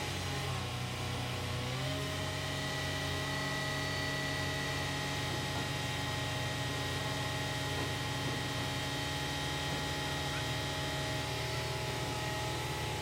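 Large diesel crane engine running steadily, its pitch rising slightly about a second in, as the engine is held at working speed to fit the counterweight.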